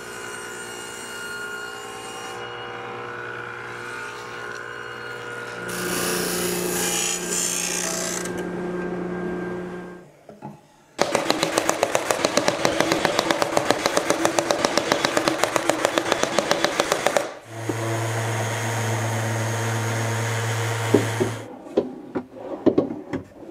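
Table saw running, then cutting through thin plywood with a louder, steadier load for about four seconds before it stops. A cordless brad nailer then fires in a rapid run of shots for about six seconds, followed by a few seconds of a steady motor hum. Near the end come several knocks and clicks of drawers sliding on their slides.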